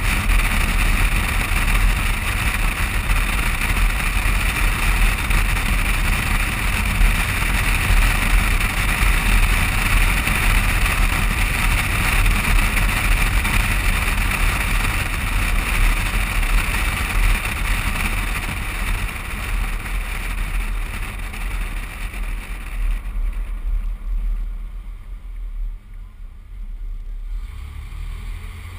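Wind buffeting and road noise on a GoPro HD Hero2 mounted on the outside of a moving car: a steady heavy rumble with hiss. About 23 seconds in the hiss drops away sharply as the car slows to a stop, leaving a low engine hum near the end.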